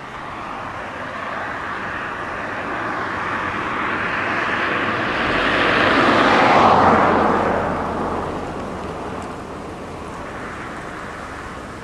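Car noise on a wet road: a rushing hiss of tyres and engine that swells to a peak about six to seven seconds in and then fades, over a low engine hum.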